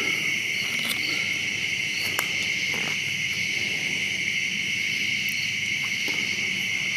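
Chorus of night insects such as crickets, trilling steadily in two high, unbroken bands, with a few faint clicks.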